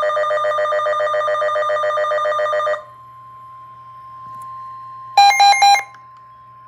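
Emergency Alert System alert tones: a loud, rapidly pulsing alarm tone for nearly three seconds, then a faint steady single tone, broken about five seconds in by a brief loud warbling chirp.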